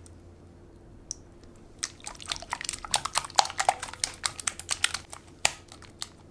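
A whisk beating egg and melted butter in a glass bowl: rapid wet clicking and splashing as the wires hit the glass and churn the liquid. It starts about two seconds in and goes for about three and a half seconds, then stops.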